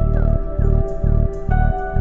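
Electronic music played live on hardware synthesizers: a pulsing synth bass line, about two notes a second, under held chord tones, with the chord changing about one and a half seconds in.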